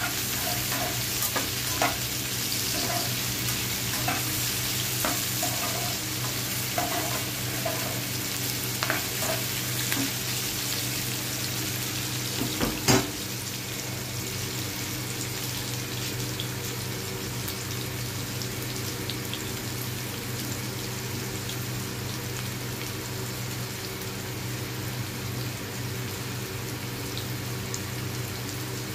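Sliced onions frying in oil in a nonstick pan: a steady sizzle over a low hum. A spatula scrapes and stirs through them for the first dozen seconds, then knocks once sharply about thirteen seconds in as it is set down, and the frying sizzles on alone.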